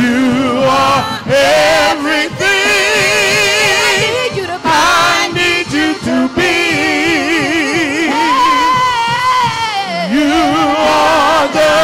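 A praise team of mixed male and female voices singing a worship song together, holding long, drawn-out notes with a strong vibrato.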